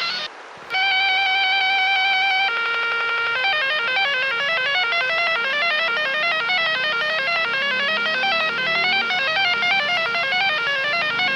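Emergency-alert alarm music. After a brief dip, a steady held tone sounds for about two seconds, then a lower held tone briefly. Then comes a fast plucked melody whose notes run rapidly up and down.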